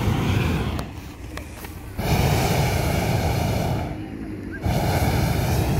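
Hot-air balloon's propane burner firing in loud blasts. It cuts off about half a second in, fires again for about two seconds, pauses briefly, then fires again near the end.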